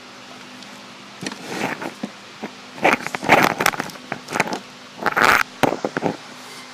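Zip ties being pulled tight around a bundle of wiring-harness cables, with rustling of the wires: irregular plastic clicks and scrapes in bursts that start about a second in and stop near the end.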